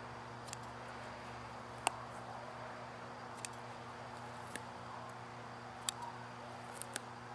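Scissors snipping dandelion flower heads: about seven short, sharp snips at irregular intervals, the loudest about two seconds in, over a faint steady hum.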